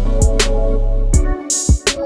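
Background music with a steady drum beat and bass; the bass drops out about a second and a half in.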